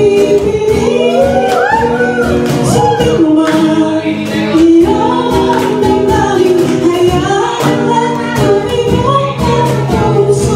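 A woman singing into a microphone, accompanied by acoustic guitar and cajón: a small live acoustic band performing.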